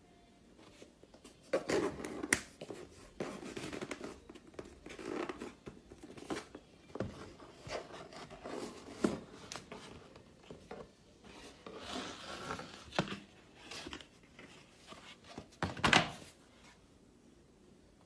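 Packaging being opened and handled by hand: irregular rustling, crinkling and tearing of paper, with scrapes and sharp taps, the loudest near the end.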